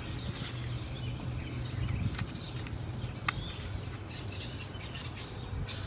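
Birds chirping, with light plastic clicks and rattles from headlight parts being handled and one sharper click about three seconds in, over a steady low hum.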